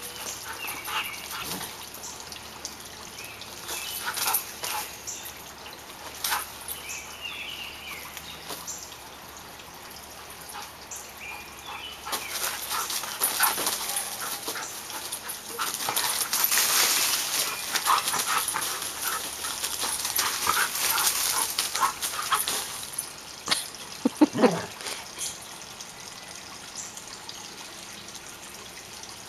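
A Samoyed's vocal noises during rough play, with scuffling and rustling in bark mulch that is loudest in the middle stretch. Near the end there is a short low sound that falls in pitch.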